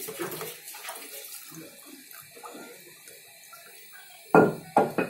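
Blended papaya-leaf and aloe-vera juice trickling and dripping through a small plastic strainer into a bowl, in soft irregular splashes. About four seconds in, three sharp knocks.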